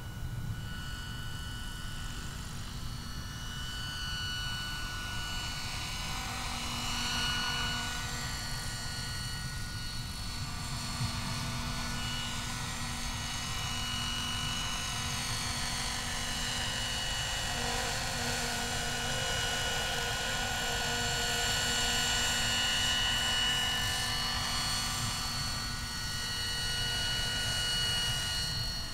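Electric Minicopter Heli-Baby model helicopter, driven by a Plettenberg electric motor, flying: a steady high whine over a low rushing rotor noise, swelling louder several times as it passes close.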